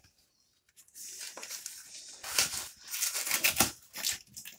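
Cardboard mailer packaging being handled and pulled open: a run of short rustles and scrapes starting about a second in, after a moment of near silence.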